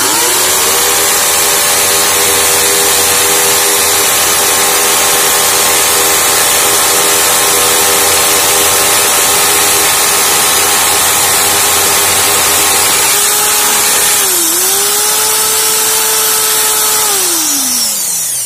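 Ryobi corded drill in hammer mode boring into a masonry wall: a loud, steady motor whine, its pitch dipping briefly about 14 seconds in, then winding down with falling pitch near the end as the trigger is released.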